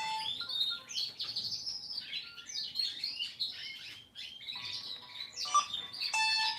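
Birdsong ringtone on an old Samsung mobile phone: rapid falling bird-like chirps, broken by a short pause about four seconds in, with a few short melodic beeps returning near the end.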